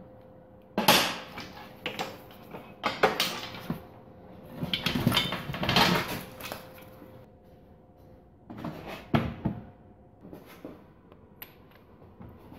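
Workshop handling clatter: parts and tools being picked up and set down, with sharp knocks about a second in, around three seconds in and near nine seconds, and a longer rattling stretch in the middle.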